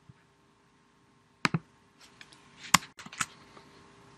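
Sharp computer mouse clicks over a faint steady room hum: a quick pair about a third of the way in, then a rapid run of several more around the middle.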